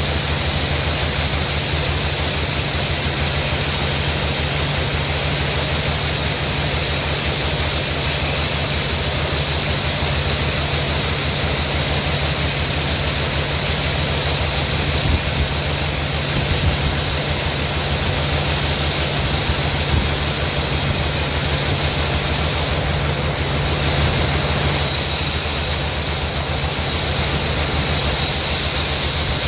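Sawmill machinery running steadily: a strong high hiss over a low hum, with the high end getting brighter about 25 seconds in.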